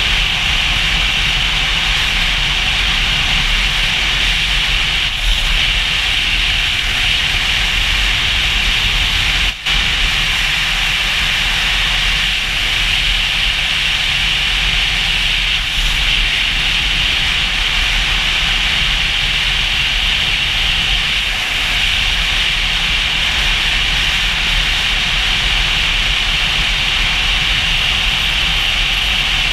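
Steady rush of wind and road noise from a motorcycle at highway speed, with a low rumble underneath. The sound cuts out for an instant about ten seconds in.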